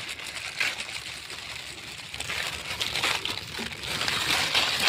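Plastic instant-noodle packets crinkling and tearing as they are ripped open by hand, an irregular rustle with small crackles that grows busier about halfway through.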